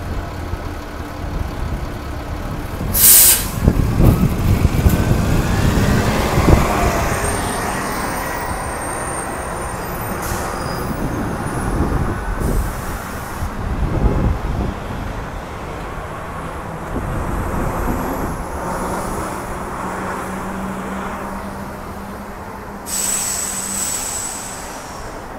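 City diesel buses and traffic running at the curb, with a sharp air-brake hiss about three seconds in and another near the end. A rising whine comes in between as a bus pulls away.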